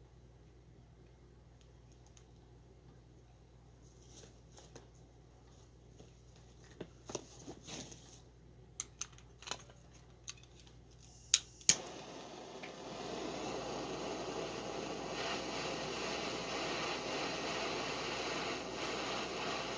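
A scatter of small clicks and taps, the two sharpest and loudest about halfway through, then a steady rushing noise sets in.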